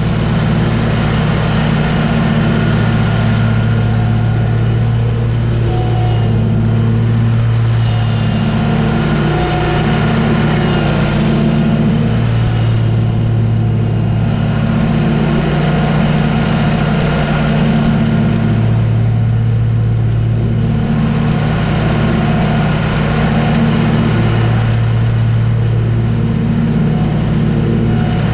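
Engine of a commercial riding mower running steadily with the cutting deck mowing grass; its low drone swells and eases every few seconds.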